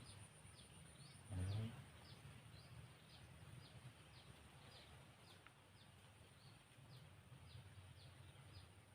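Faint, repeated short high chirps, about two a second, from a bird, over quiet open-air background; a thin steady high whine fades out about a second and a half in.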